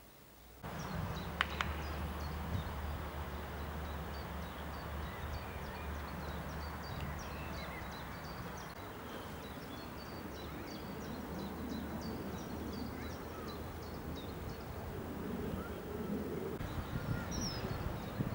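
Outdoor ambience that starts under a second in: birds singing, with short high chirps repeating many times, over a steady low rumble.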